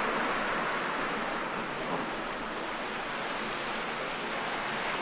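Sea waves washing onto the beach, a steady rush of surf that eases a little in the first second.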